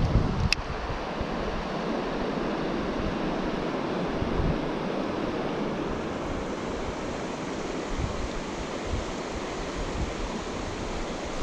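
Steady rush of river water running over rocky shoals, with wind buffeting the microphone now and then and a single sharp tick about half a second in.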